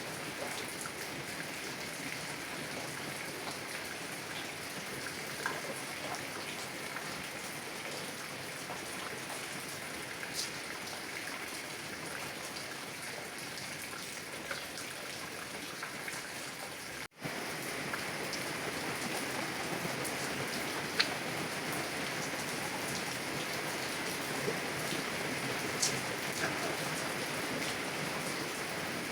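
Heavy rain on a car's windows, a steady patter with scattered single drops ticking sharply. It breaks off for a split second about halfway through and comes back slightly louder.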